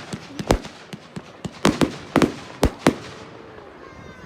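Fireworks going off: an irregular run of sharp bangs and cracks, several in quick succession through the middle, thinning out near the end.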